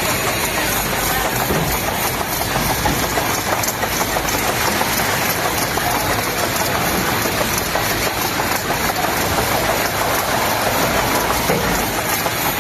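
Factory production and packaging machinery running steadily: a continuous dense mechanical noise with fine, rapid clatter on top and no pauses.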